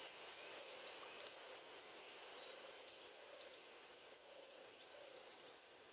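Near silence: faint outdoor background with a faint buzz of flying insects that comes and goes, and scattered small high chirps.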